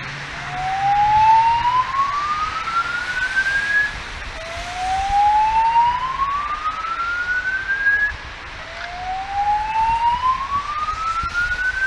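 Fire alarm evacuation speakers sounding a whoop tone: three slow rising sweeps, each about three and a half seconds long, with a short break between them. It is the evacuation signal of a real alarm, not a test.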